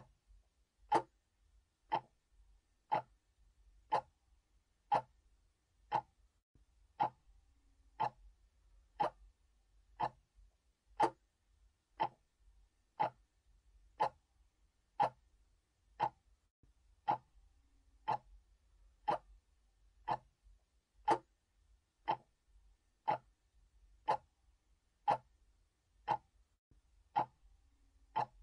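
A clock ticking steadily, about one sharp tick a second.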